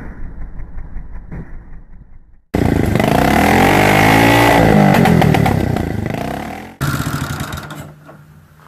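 1980 Yamaha TT250G single-cylinder four-stroke engine running, in three short spliced clips. First it runs muffled, then a much louder clip where it revs up and falls back, then it idles steadily, fading near the end.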